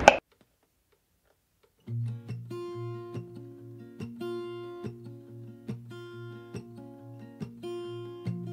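Background music on acoustic guitar, with regular plucked or strummed notes, starting about two seconds in after a brief silence.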